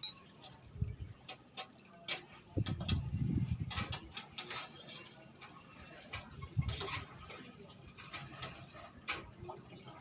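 Scattered clicks and light knocks of small metal parts being handled, with a few short scraping strokes, from work on a cotton candy machine's heating head.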